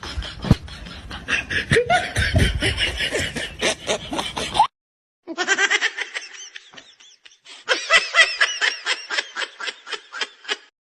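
Laughter in quick repeated bursts. It breaks off suddenly for about half a second near the middle, then starts again.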